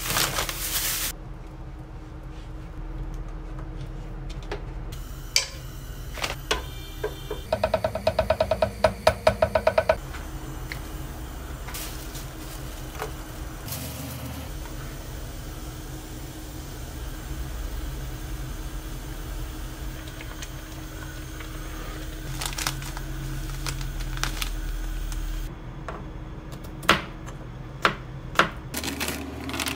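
Kitchen cooking sounds. A packet is emptied into a pot at the start, and a quick, even run of clicks lasts about two seconds. A steady low noise follows while a pot of fish cake and green onion soup heats, and near the end a kitchen knife slicing garlic cloves knocks a few times on a plastic cutting board.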